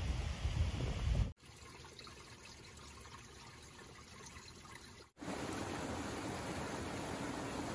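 Wind buffeting the microphone for about a second, then a cut to a much quieter stretch. From about five seconds in, a small mountain stream rushes steadily over rocks.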